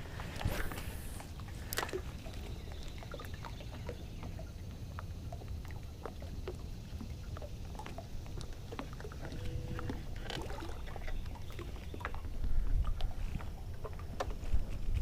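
Steady low rumble with water sloshing against a boat hull, and scattered small clicks and taps.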